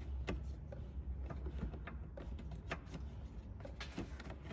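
Small clicks and ticks of a plastic trim clip being worked loose from a wheel-arch liner by hand, scattered irregularly over a low steady hum.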